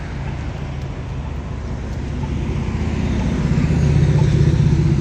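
Road traffic on the street alongside: a motor vehicle's engine hum grows steadily louder as it approaches, loudest about four seconds in.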